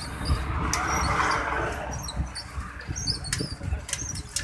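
A truck passing on the road; its engine and tyre noise swell about a second in and then fade. Small birds chirp over it.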